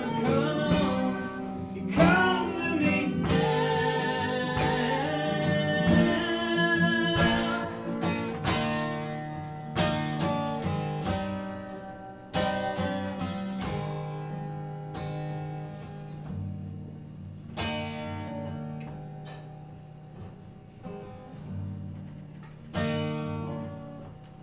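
Solo acoustic guitar with strummed and picked chords, each strong strum left to ring. The playing grows gradually quieter toward the end.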